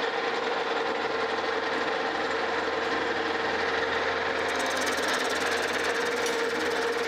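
Monarch engine lathe running under power, spinning a cast iron crosshead fitted with bronze shoes for the final finishing pass: a steady running hum with a clear tone. About four and a half seconds in, a brighter, higher hiss joins it.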